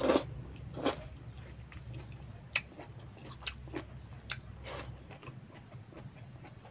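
Mouth sounds of a man eating kinilaw banana-heart salad and rice by hand: a loud suck of food off the fingers at the start, another about a second in, then scattered smacks and clicks of chewing.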